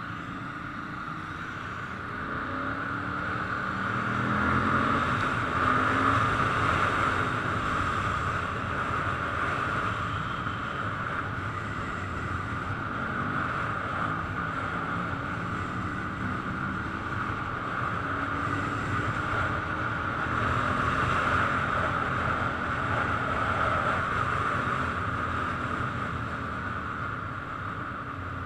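Ducati motorcycle engine pulling up through the revs and easing off twice, its pitch rising and falling, over a steady rush of wind noise.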